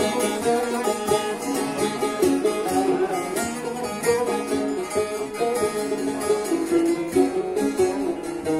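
Bağlama (Turkish long-necked saz) playing a quick plucked melody with no voice.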